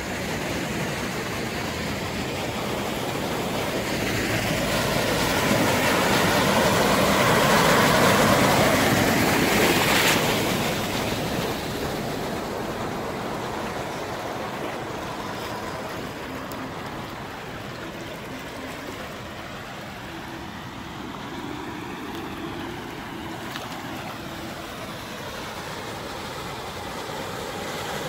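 Water splashing and washing as vehicles drive through a flooded road, with engine noise underneath. The splashing swells to its loudest about eight seconds in, then dies down to a steadier, lower wash.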